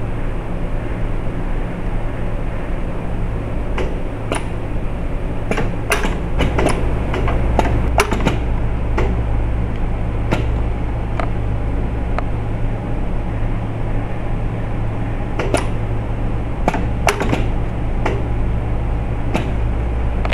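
Automated stopcock assembly machine running: a steady low hum with scattered sharp clicks as its pneumatic cylinders and grippers move, in clusters about four seconds in and again near the end.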